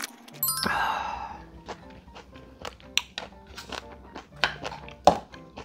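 Background music over close-miked eating sounds: a loud slurp of seaweed soup from a plastic tub about half a second in, then chewing and quick clicks of a spoon and chopsticks against a plastic bowl, with one sharp click near the end.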